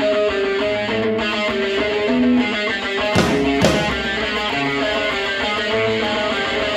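Instrumental opening of a rock song: a guitar playing a repeating line of single notes, with two drum hits a little past halfway.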